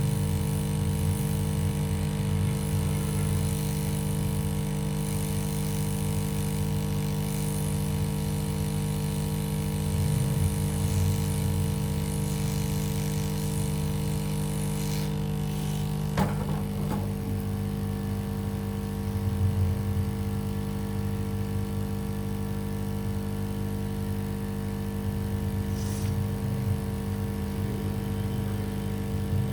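Steady electrical hum of the electronics rework bench equipment, several fixed tones over a wavering low rumble. A single brief tap about sixteen seconds in.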